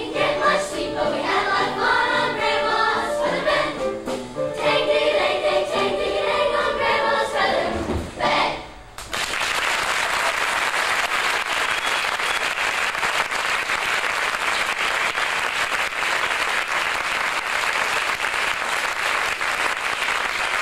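A show choir of young singers sings the closing bars of a song, which ends about nine seconds in; the audience then breaks into steady applause.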